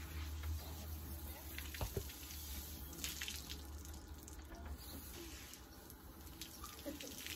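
Water from a garden hose spraying and splashing over a horse's coat as it is washed down.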